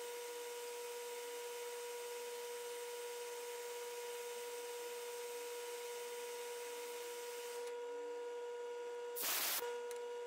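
Metal lathe running with a steady whine while a long twist drill bores into a brass crosshead held in a collet. A short, louder rush of noise comes about nine seconds in.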